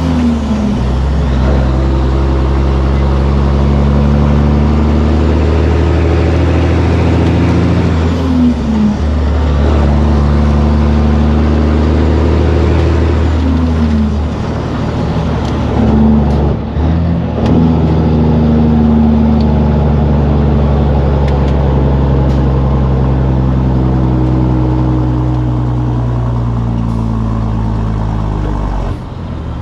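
A heavy semi-truck diesel engine pulls steadily under a heavy load. Its pitch breaks and resettles at gear changes a little after the start, about 8 and 13 seconds in, around 16–17 seconds, and near the end.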